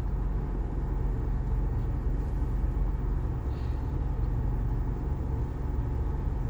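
Steady low rumble of a truck idling, heard from inside the closed cab, with the air conditioning running.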